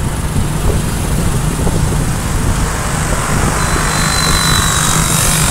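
Motorcycle riding along a town road, heard from on the bike: a steady engine drone mixed with rushing wind noise.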